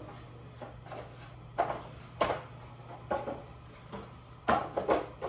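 Several short knocks and clatters in a kitchen over a steady low hum, the loudest two close together near the end.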